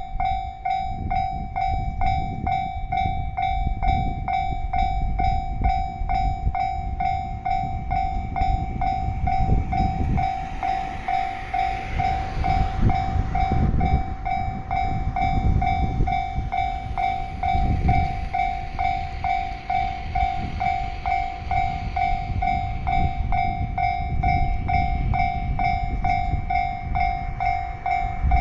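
Level-crossing warning bell ringing in a steady, evenly repeated electronic ding over the loud rumble of an electric train passing over the crossing.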